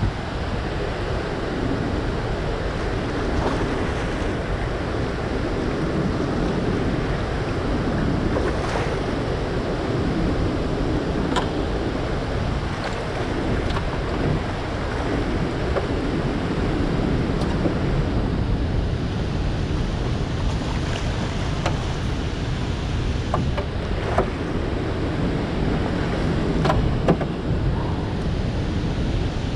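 Steady rush of floodwater pouring through open dam flood gates and churning past a jon boat below the spillway, with wind buffeting the camera microphone. A few faint ticks sound now and then over it.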